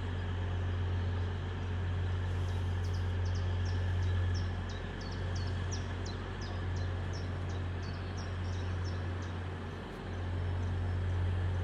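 A small bird sings a run of short, high chirps, about three a second, starting a couple of seconds in and stopping near the end, over a steady low rumble.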